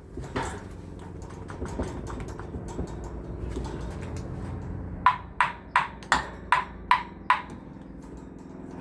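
Seven sharp taps with a short metallic ring, about three a second, starting a little past halfway, after fainter clicks: a tool striking the fan motor's housing to realign its bearings so that a tight or locked-up rotor turns freely.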